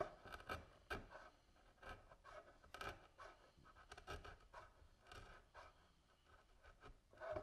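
A router plane shaving the bottom of a hinge mortise clean and flat in a wooden box side, heard as a series of faint, short scraping strokes about once a second.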